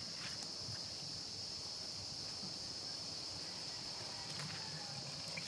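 Steady high-pitched chorus of insects chirring without a break, with a couple of faint wet squelches from grated coconut being squeezed by hand to press out coconut milk.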